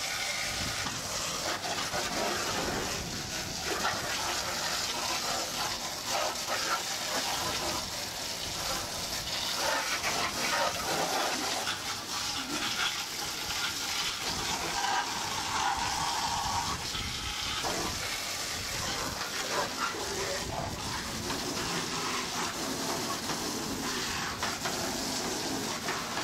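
Water jets spraying and splashing over a steady din of fairground noise and distant voices.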